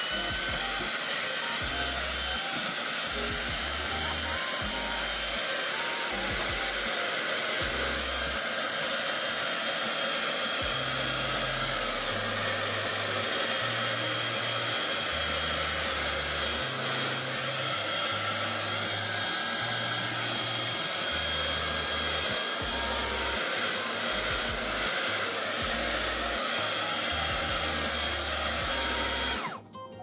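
Handheld cordless vacuum cleaner running steadily with a high whine as its nozzle sucks dust off an air conditioner's clogged mesh filter, then switched off near the end.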